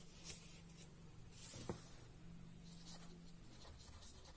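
Pen writing on paper: faint scratching strokes, with a longer stroke about a second and a half in and another near three seconds.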